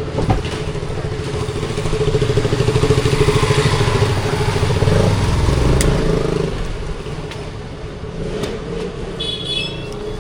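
Motorcycle engine running close by, getting louder over the first couple of seconds, then fading away after about six seconds.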